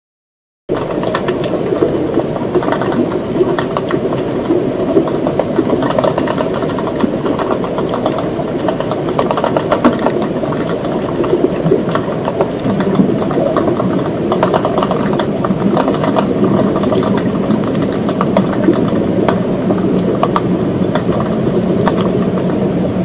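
Underwater river ambience: a dense, steady crackling rattle made of many fine clicks. It starts after a moment of silence, and a faint low hum joins about halfway through.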